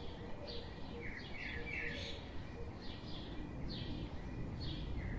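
Small songbirds chirping: short, quick falling chirps, about two a second, over a steady low background hiss.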